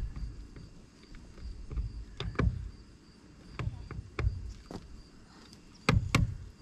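PVC pipe guide post being pushed and knocked down into its mount on a boat trailer: a series of hollow knocks and thuds, the two loudest close together near the end as it seats.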